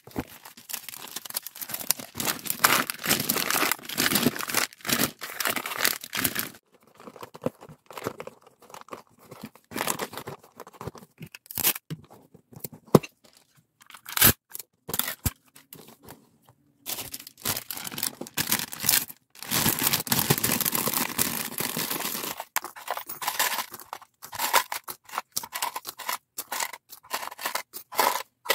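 Parcel-packing handling sounds: cardboard boxes and packing materials being pressed, moved and rustled, with stretches of tearing and a few sharp knocks, broken by short pauses.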